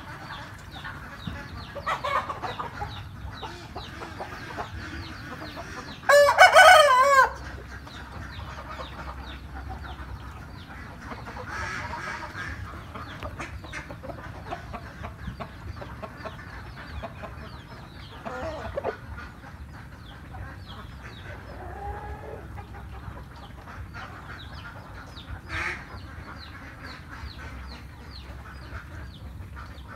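A rooster crows once, loudly, about six seconds in, with fainter clucks and calls from other poultry around it.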